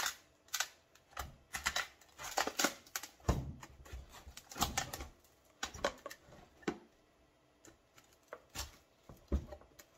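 A flat metal blade is jabbed and worked down between a plastic battery case and its cells, cutting and scraping through the hardened spray foam that glues them in. It gives irregular scrapes and clicks, with heavier knocks about three seconds in and again near the end.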